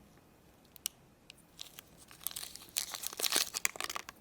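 Packaging crinkling and tearing as a small toy is unwrapped by hand: scattered crackles at first, then a denser burst of crinkling in the second half.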